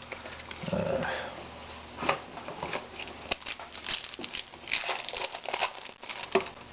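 Trading cards and their plastic holders being handled: scattered clicks and rustling as cards are flipped and sorted.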